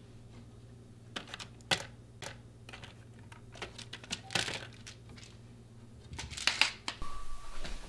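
Irregular small clicks, taps and light rustles of a hand feeling and tapping over a wooden door panel. There is a sharp click about two seconds in and busier clusters of taps around four and six seconds in.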